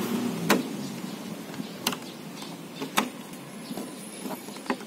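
Four sharp clicks and knocks, spaced irregularly about a second or so apart, from tools and car door parts being handled, over a faint steady hum.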